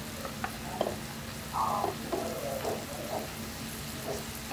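Meat, king clam and vegetables sizzling on a tabletop griddle, with a few light clicks of chopsticks and dishes.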